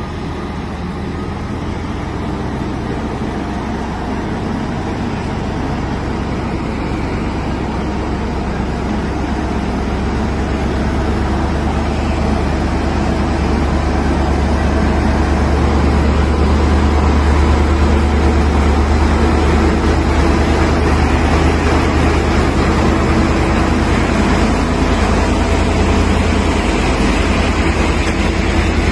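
Diesel engine of a 500-tonne Liebherr all-terrain mobile crane running under load as the crane drives slowly out onto the road, a steady low rumble that grows louder over the first half and then holds.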